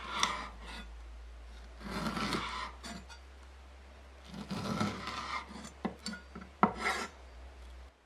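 Long kitchen knife drawn in long slicing strokes through a raw white fish fillet, the blade scraping along a wooden cutting board, three strokes in all. A few sharp knocks follow near the end.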